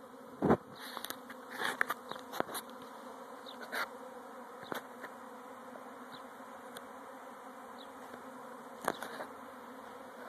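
Swarming honey bees buzzing in a steady dense hum, with several short louder buzzes coming and going as single bees pass close, the loudest about half a second in and near nine seconds.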